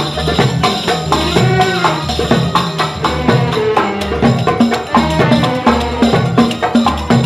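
Instrumental break in a Gulf Arabic song: a violin section plays the melody over a steady hand-percussion beat with tambourine and drums.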